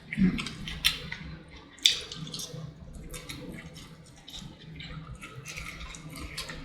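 Close-miked wet chewing and lip-smacking of fried chicken in sauce: irregular short smacks and clicks, a few louder ones near the start and about two seconds in.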